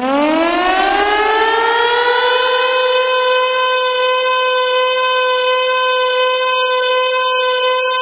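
Siren winding up: its pitch rises over the first two to three seconds, then holds a steady high tone.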